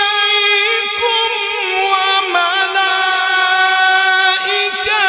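A male Qari reciting the Quran in the melodic tilawat style, holding one long drawn-out phrase. The voice stays on a high sustained pitch with small ornamental turns and slides, including a step up about two seconds in.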